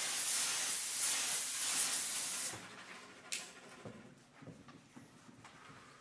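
Experimental improvised ensemble performance: a hissing wash of noise for about two and a half seconds, which fades to faint scattered clicks and small rattles of objects, with one sharper click a little after three seconds.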